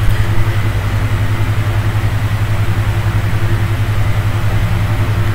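A steady low droning hum with a fast, even pulse, mechanical like an idling motor.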